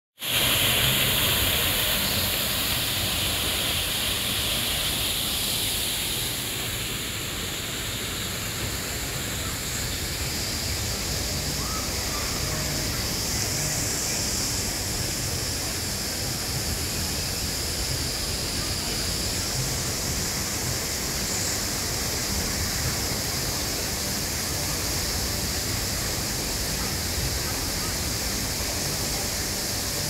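Waterfall pouring over rocks into a pond: a steady rush of falling, splashing water, a little louder for the first few seconds and slightly softer after about six seconds.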